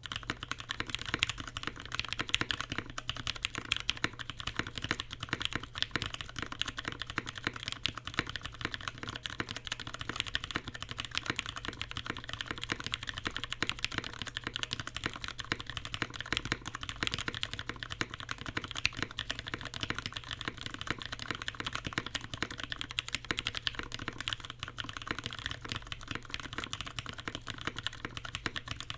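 Continuous fast typing on a Linworks Dolinger RE custom mechanical keyboard: retooled Cherry MX Brown tactile switches lubed with Tribosys 3204, on a polycarbonate plate, with CRP Peacock keycaps, giving a dense stream of key clacks. The typing begins abruptly after near silence.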